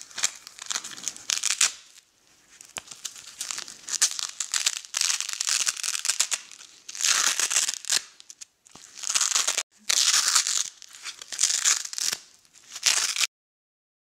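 Hook-and-loop (Velcro) fastener on a traditional swaddle wrap being ripped open again and again, a series of harsh ripping bursts that cuts off suddenly near the end.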